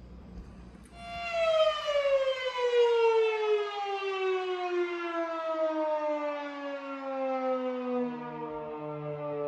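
A single rich tone starting about a second in and sliding slowly down in pitch for several seconds, with a lower steady note entering near the end, like a descending synth opening of background music.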